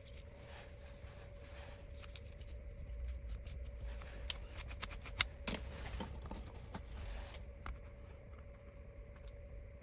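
Light rubbing and scraping with scattered small clicks, busiest in the middle, as old thermal paste is wiped off the laptop's processor chips with isopropyl alcohol.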